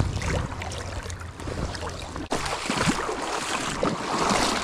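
Shallow creek water running and splashing around a landing net held in the current, with a brief break a little over halfway through.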